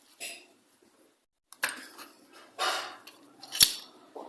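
Hard plastic parts being handled and shifted on a workbench: several short scrapes and rattles, then one sharp click about three and a half seconds in.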